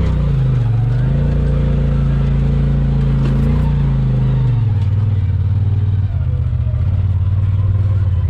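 Polaris RZR Pro XP side-by-side's engine running as it drives, steady and loud. Its pitch dips briefly about half a second in, then drops lower around four and a half seconds in.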